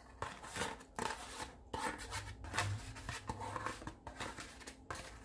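Fork scraping and tapping against a bowl as wet batter is poured and scraped into another bowl: a quick, irregular run of scrapes and light clinks, with a faint low hum under the second half.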